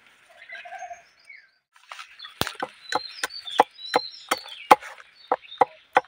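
Sickle blade chopping and splitting green bamboo against a log: a run of sharp strikes, about three a second, starting about two seconds in.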